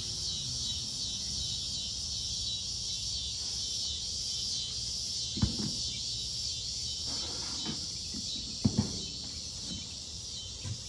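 Cicadas calling in a steady, dense chorus. A knock sounds about halfway through and two quick knocks near the end, as items are handled.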